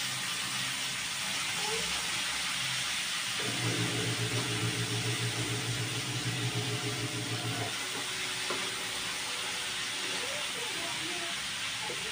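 Sliced cabbage and carrots sizzling in a hot wok over a gas burner, stirred with a wooden spatula, with a steady hiss from the frying.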